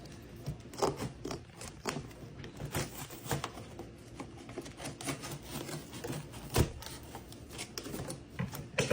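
Scissors cutting through a cardboard box in short, irregular snips and scrapes, with one louder knock about six and a half seconds in.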